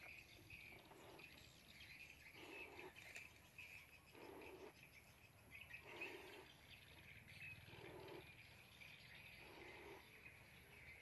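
Faint, evenly spaced puffs of breath blowing up a latex balloon, six in all, about one every two seconds, with birds chirping in the background.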